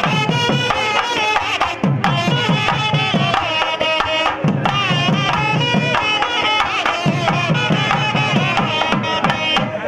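Music: rapid drum strokes under a bending, ornamented melodic line.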